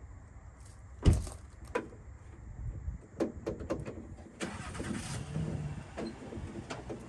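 Clicks and metallic clunks from hand work inside a truck's door: a sharp knock about a second in, then a run of smaller clicks and rattles, with a short scraping rustle in the middle.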